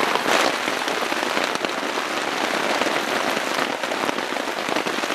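Heavy rain falling steadily and hitting the tarp overhead, a dense even hiss of many drops.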